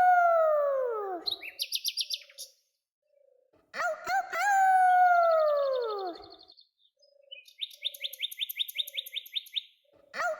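Animal calls: a long call falling in pitch, followed by a rapid, high-pitched chirping trill, the pair heard twice.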